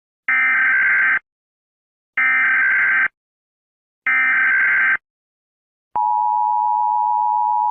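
Emergency broadcast alert signal: three identical harsh electronic beeps, each about a second long and about two seconds apart, then a steady lower tone held for about two seconds.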